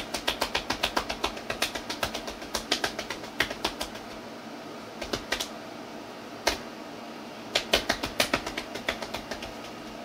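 A run of quick, sharp taps, about three to four a second, that stops about four seconds in, gives way to a couple of single taps, and starts again briefly near the end.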